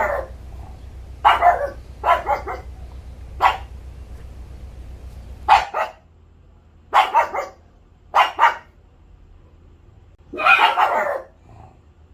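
A dog barking: a string of about eight short, sharp barks at irregular intervals, the last one a little longer.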